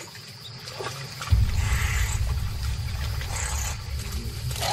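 Lions and a honey badger cub fighting in dry grass: a rough, low growling rumble that starts suddenly about a second in and keeps going.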